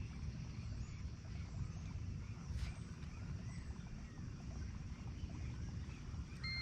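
Outdoor lake background: a steady low rumble of wind on the microphone, with faint bird chirps and a single click about two and a half seconds in. A short electronic beep sounds right at the end.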